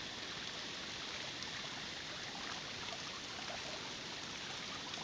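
Small waterfall pouring into a rock pool: a steady, even rush of water that stays level throughout.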